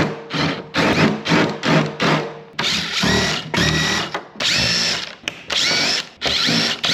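Impact driver run in a series of short trigger bursts. From about two and a half seconds in, the bursts get longer, each with a motor whine rising in pitch as it spins up.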